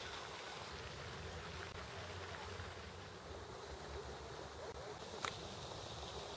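Faint outdoor background noise: a steady hiss with a low rumble in the first few seconds, and a single sharp click about five seconds in.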